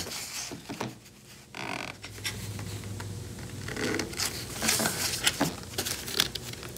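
Upholstery material rustling and scraping against the dashboard speaker deck as hands tuck and seat its tabs, with scattered small clicks.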